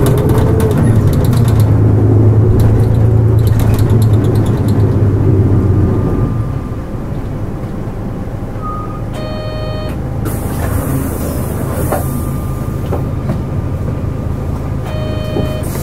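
Running sound of a Hankyu Bus KL-JP252NAN city bus heard on board: the diesel engine pulls under acceleration, then drops away about six seconds in as the bus eases off. A short electronic chime sounds about nine seconds in and again near the end, with a burst of air hiss in between.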